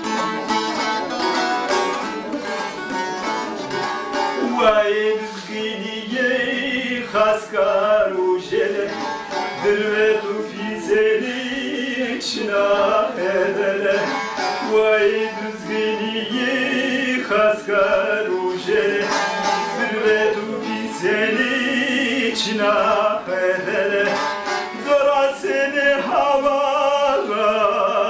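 A long-necked plucked lute, the saz or bağlama of a cem ceremony, played in quick repeated notes, with a voice starting to sing a devotional hymn over it about five seconds in.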